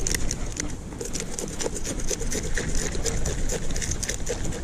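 A knife scraping the scales off a whole black-bellied rosefish in rapid, repeated strokes. The strokes thin out in the middle and pick up again near the end.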